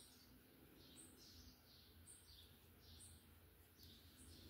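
Near silence with a bird chirping faintly in the background: a steady run of short, high chirps, two or three a second, over a faint low hum.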